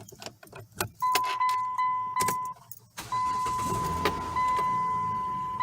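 A 2009 Dodge Journey entered and started: a few clicks and knocks, then a steady warning chime, and about three seconds in the engine cranks, catches and settles into running while the chime keeps sounding. This is the start test after adding an extra negative ground cable to cure its random no-start.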